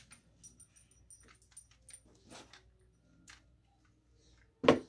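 Scattered faint clicks and taps from hands working with a hot glue gun and a plush figure, then one short loud sound near the end.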